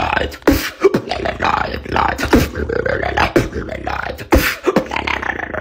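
A man beatboxing: sharp vocal kick-drum and snare hits roughly a second apart, with sung vocal sounds filling the gaps between them.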